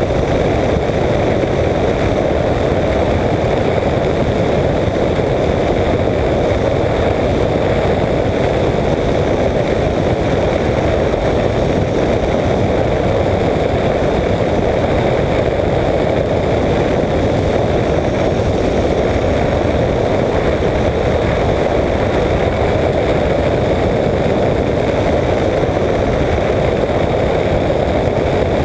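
Apollo Jet Star microlight trike in level flight, its engine and pusher propeller running steadily.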